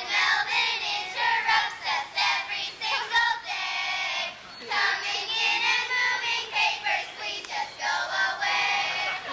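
A group of children singing together in unison, with some notes held.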